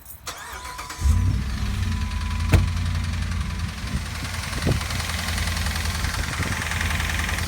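Dodge Ram's 5.7-litre Hemi V8 running with a loud engine noise that sets in about a second in, with a sharp click about two and a half seconds in. The noise comes from the bottom end of the engine, which a technician takes for failing rod bearings or a bad crankshaft.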